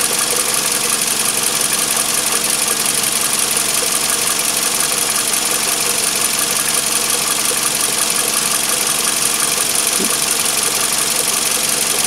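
Steady mechanical running noise, an unchanging whir with a faint hum.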